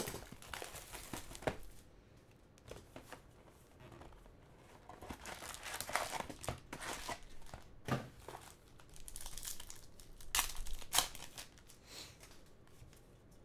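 Panini Contenders hockey card box being opened and its card packs torn open, the wrappers crinkling and tearing in irregular bursts, with a few sharper snaps in the second half.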